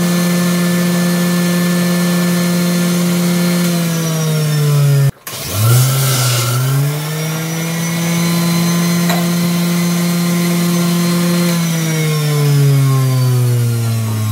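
Philips centrifugal juicer motor running at a steady whine with only water inside, a rinse run to clean it. About five seconds in it cuts out for an instant and then spins back up, and near the end it winds down with falling pitch.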